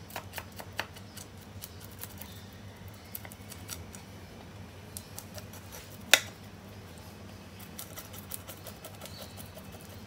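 Knife blade scraping the scales off a small tamban (sardine) on a wooden cutting board: a scatter of light, scratchy clicks, with one sharp click about six seconds in.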